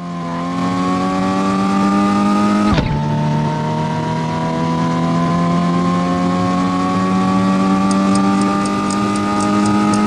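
Car engine accelerating hard in a slowly rising note, dropping in pitch at an upshift about three seconds in, then climbing again through the next gear.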